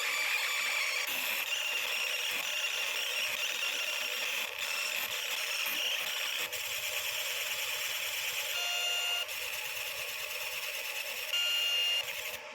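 Fiber laser marking machine marking metal, a steady high-pitched hiss. Two short electronic beeps come near the end.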